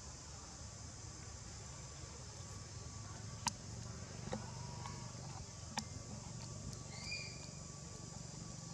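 Outdoor forest-floor ambience: a steady hiss with a few sharp clicks, and one short squeak about seven seconds in.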